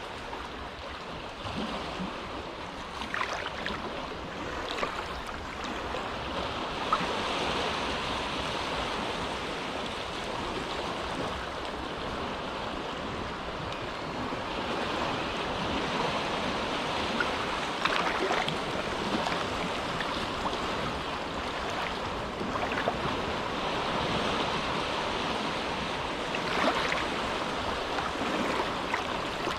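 Small, gentle waves lapping at the shore of a calm cove, a steady wash that swells softly every few seconds with small splashes.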